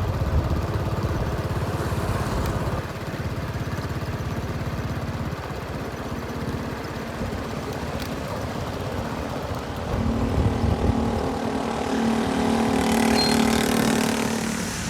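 Diesel engines of asphalt paving machinery running. About ten seconds in, a steadier, higher engine note joins and grows louder near the end.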